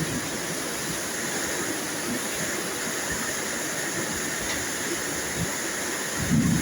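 Steady rain falling with an even hiss, and a brief low thunder clap near the end.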